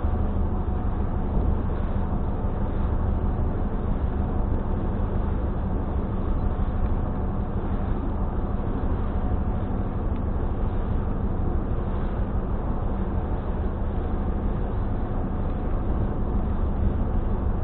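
Steady low engine drone with a constant hum, heard from inside a car on a car ferry's deck.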